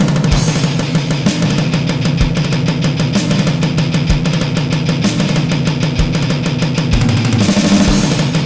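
Heavy metal music: guitar over fast, dense drum-kit playing with a steady bass-drum pulse.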